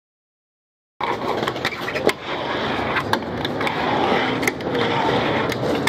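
Dead silence for about the first second, then a fingerboard rolling on a wooden Blackriver mini ramp: a steady rolling rumble broken by scattered sharp clacks as the board's wheels and tail hit the wood.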